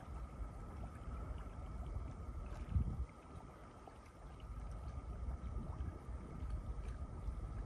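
Harbour de-icer churning water in an open hole in the sea ice, a steady low rumbling wash with a faint constant hum above it. A brief low thump comes just before three seconds in.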